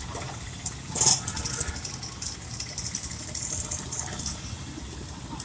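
Street traffic: motorcycle and car engines running past, with a brief louder noise about a second in.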